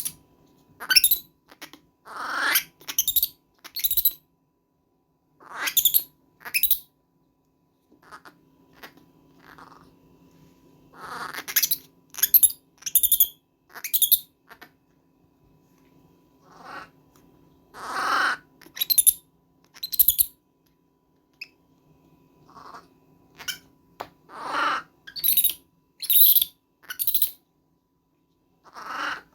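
Baby monkey screaming over and over in short, shrill calls with brief gaps between them.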